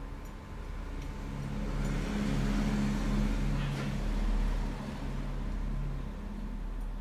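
A motor vehicle passing by, its engine note and road noise growing louder about two seconds in and fading after about four and a half seconds.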